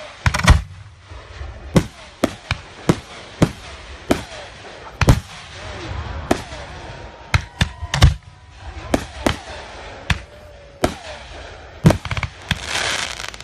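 Aerial fireworks shells bursting overhead: an irregular run of sharp bangs, roughly one or two a second, with a spell of hiss near the end.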